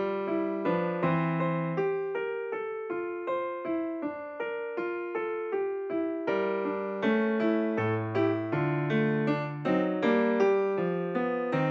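Background music: an electric piano playing a steady run of plucked-sounding notes over a changing bass line.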